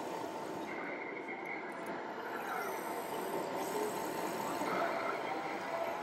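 Steady murmur of a crowd in a large hall, with short whines, some of them gliding in pitch, from a radio-controlled Hitachi excavator's hydraulics and motors as it swings its bucket.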